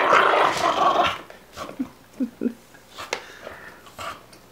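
Olde English Bulldogge making a loud, rasping, rapidly pulsing growl-grunt with a ball clamped in her mouth for about the first second. A few short rising whines and small snuffles and clicks follow.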